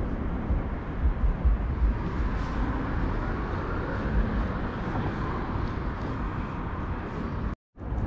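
Steady rumble of road traffic crossing a nearby bridge, with uneven low rumbling underneath. The sound cuts out completely for a moment near the end.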